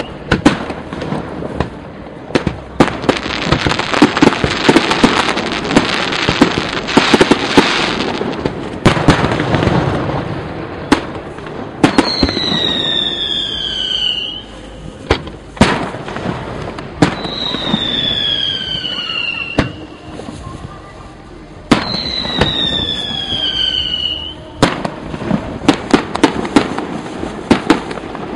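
Aerial fireworks display: a rapid string of bangs and crackle, then three whistling shells, each a whistle falling in pitch, about five seconds apart and each followed by sharp bangs.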